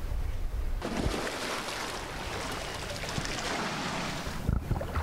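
Water splashing from a swimmer's strokes in an outdoor pool, starting suddenly about a second in. Wind rumbles on the microphone before the splashing begins.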